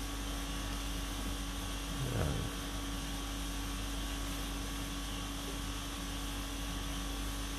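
Steady room hum, like air conditioning running, with one short low sound about two seconds in.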